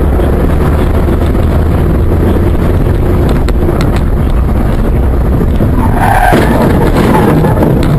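A car in motion at speed, with loud, steady engine and road noise heavy in the low end. A higher, wavering sound rises over it about six seconds in and fades by the end.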